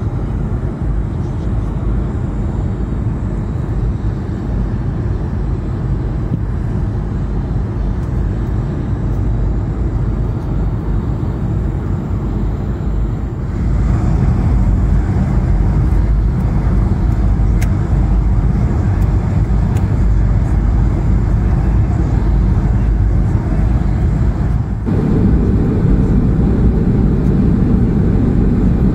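Steady low rumble of an Airbus A220-200 airliner. It gets louder about 13 seconds in and deepens again near the 25-second mark.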